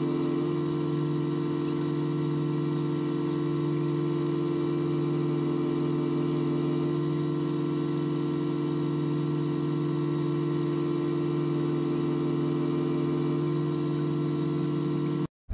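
Background music: an unchanging ambient drone of held tones, cut off abruptly just before the end.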